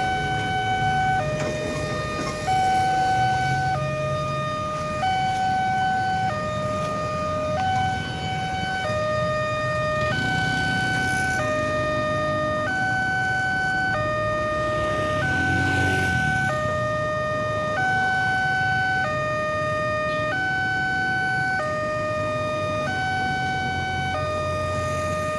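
Railway level-crossing warning alarm sounding: an electronic two-tone signal, a high and a low tone alternating evenly and without a break, warning that the crossing is closing for trains. Engines of the vehicles waiting at the crossing run underneath.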